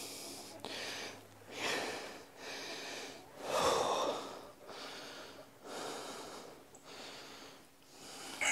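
A person breathing hard close to the microphone while walking, in noisy puffs about once a second. A rooster starts to crow at the very end.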